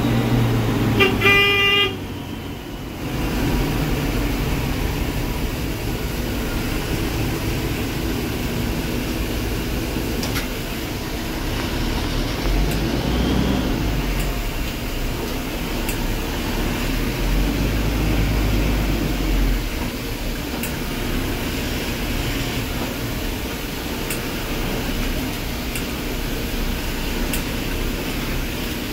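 Engine and road noise of an Ashok Leyland sleeper bus, heard from inside the driver's cabin as it drives slowly, with a short horn toot about a second in.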